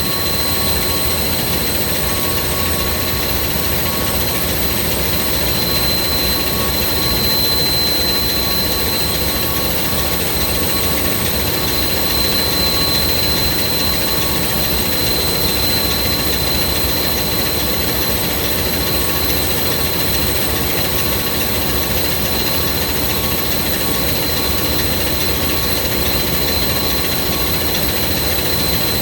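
Ship's machinery running with a loud, steady roar, and a steady high-pitched tone from a smoke detector alarm sounding under test.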